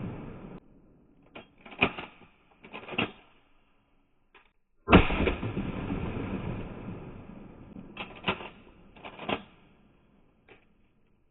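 Remington 870 20-gauge pump-action shotgun being fired and worked. The echo of a shot dies away, then the slide is racked back and forward with sharp mechanical clacks. A second shot goes off about five seconds in and rings out for a couple of seconds, followed by another rack of the pump.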